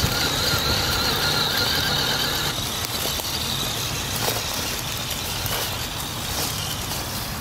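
Traxxas TRX-4 Sport RC crawler driving over dry leaf litter: its electric motor and gear train give a steady high whine that fades about two and a half seconds in, over the rustle and crunch of the tyres on the leaves.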